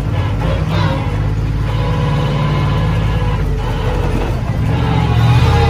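Megalodon monster truck's engine running loud as the truck drives, its pitch shifting up and down with the throttle and swelling louder near the end.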